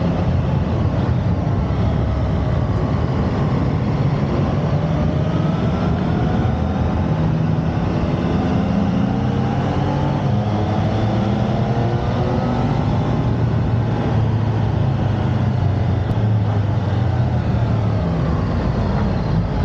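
Yamaha MT-10 motorcycle's inline-four engine running at road speed with wind noise, its pitch rising and falling as the throttle and gears change through the bends.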